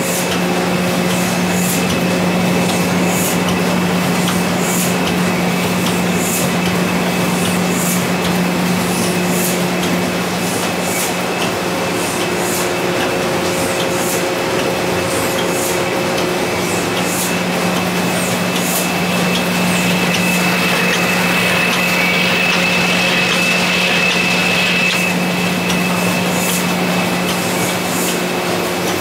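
Ryobi sheet-fed offset printing press running steadily while applying a varnish coat: a loud, continuous machine drone with a low hum, a thin high tone and short hisses that repeat about once a second.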